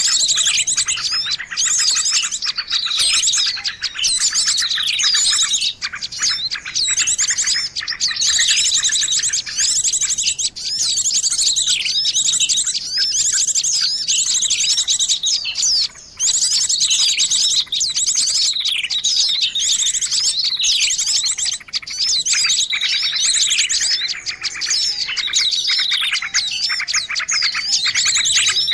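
Dense chorus of many small songbirds chirping, trilling and twittering over one another without a break, a bird-lure (pikat) recording for calling in small birds. Near the end a fainter, lower wavering whistle joins in under the chirps.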